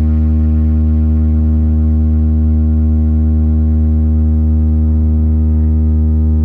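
A loud, deep electronic bass test tone from a DJ sound-check track, held at one steady pitch with a buzzy edge of overtones.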